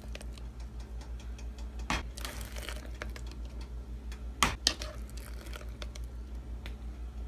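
Metal spoon scooping mayonnaise and knocking it off into a pot of pasta: soft squelches and small clicks, with two sharper knocks about two seconds in and about four and a half seconds in, over a steady low hum.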